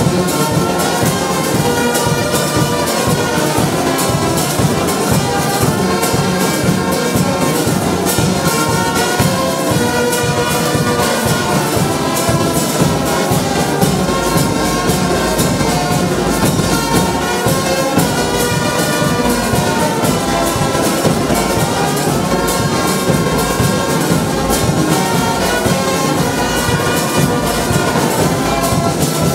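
Brass band of sousaphones, tubas, euphoniums and trumpets playing a tune together, over a steady drumbeat.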